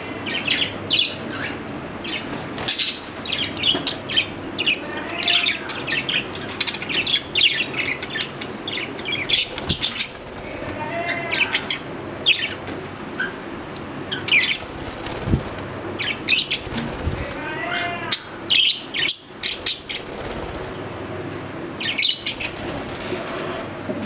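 Several budgerigars chattering: a run of short, high chirps mixed with warbling calls that slide up and down in pitch.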